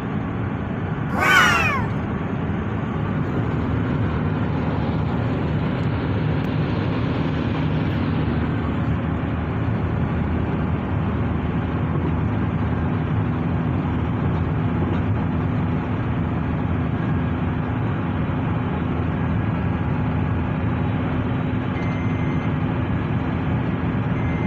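Steady road and engine noise inside a moving car. About a second in, one short high-pitched squeal falls sharply in pitch and is the loudest sound.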